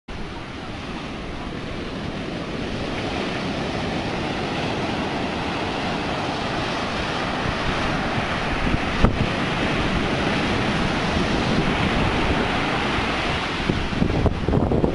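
Rough, storm-driven surf breaking and washing up a sand beach at high tide: a steady rushing of waves. Wind buffets the microphone near the end.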